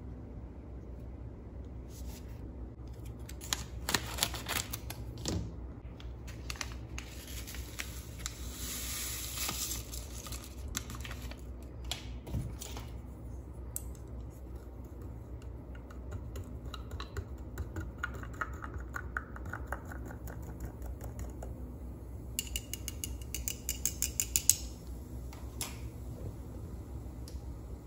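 Small handling sounds of making a candy-kit drink in a glass: scattered clicks and taps, and a plastic stick stirring in the glass, with a quick run of ticks near the end.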